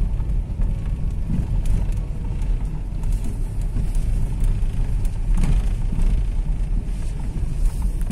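Car driving slowly, a steady low rumble of engine and tyres heard from inside the car.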